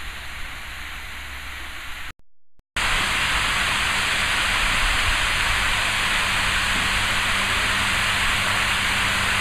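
A steady, even hiss with a faint low hum beneath it. About two seconds in it cuts out for under a second, then returns louder.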